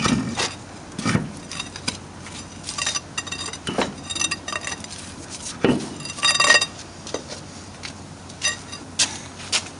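Metal tools and parts clinking and tapping against each other: a string of separate sharp clinks, several with a short metallic ring, the longest ringing one a little past the middle.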